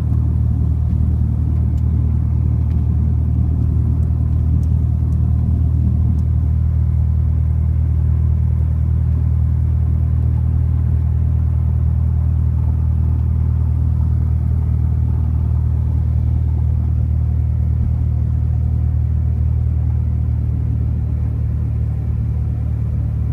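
Cessna 172's piston engine and propeller running with a steady low drone, easing slightly near the end.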